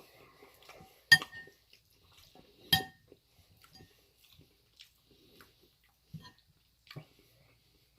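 Two sharp clinks of a metal utensil against a dish, about a second and a half apart, each with a brief ring, followed by fainter clicks and soft chewing sounds.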